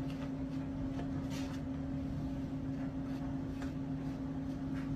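A steady low mechanical hum with one held tone, like a fan running, with a few faint soft ticks scattered through it.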